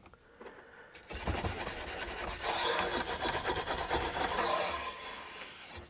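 Bronze bore brush on a cleaning rod scrubbing through a shotgun's top barrel: a steady rasping scrape of the bristles against the bore, starting about a second in.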